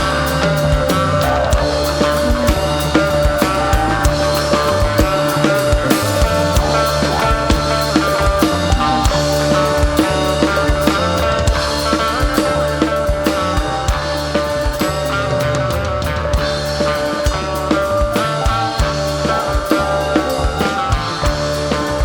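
Live rock band playing with a busy drum kit, kick and snare driving a steady beat, under a long held note that runs through most of the passage.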